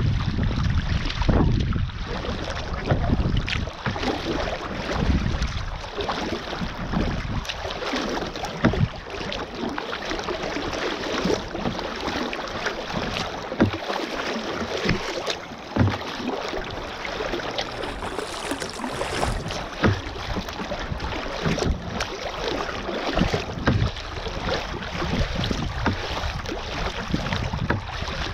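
Choppy sea water washing and slapping against the bow of a sea kayak as it is paddled, with wind buffeting the microphone. Irregular sharp slaps of water against the hull stand out from the steady wash.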